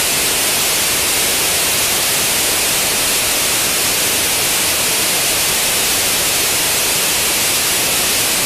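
Rocket engine firing on a static test stand: a loud, steady rushing noise that starts abruptly at ignition and holds evenly through the burn.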